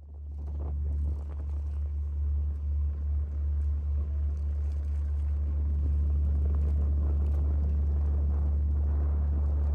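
Steady low rumble of a moving vehicle, fading in over the first second and evening out after a few seconds.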